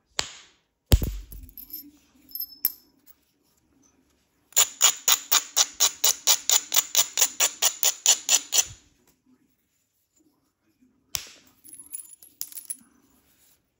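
Flint knapping on heat-treated chert: a sharp hard strike on the stone about a second in, then a rapid, even run of about twenty stone-on-stone strokes against the edge, roughly five a second, lasting about four seconds. A few lighter clicks and scratches follow near the end.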